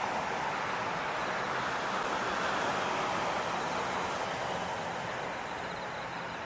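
Airbus A350-941 with Rolls-Royce Trent XWB engines on its landing rollout just after touchdown: steady jet noise that slowly fades, with a faint high whine coming in about halfway through.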